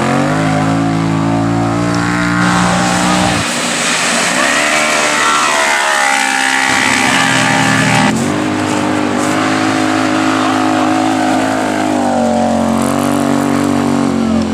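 Side-by-side UTV engines revving hard as they race: the pitch climbs and holds high, drops off about three seconds in, then climbs and holds again several times.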